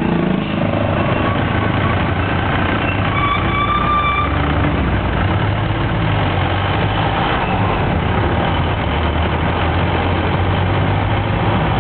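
Passenger jeepney's engine running with a steady low drone, mixed with road and traffic noise from the street around it. A brief high tone sounds about three seconds in.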